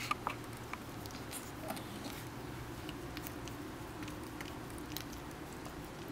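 Persian kitten and Shih tzu puppy mouthing and licking at each other: scattered small wet clicks and soft rustles of fur, the sharpest just after the start, over a steady low hum.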